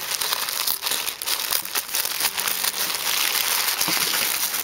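Tissue paper crinkling and rustling as hands pull it open, a dense, continuous run of small crackles.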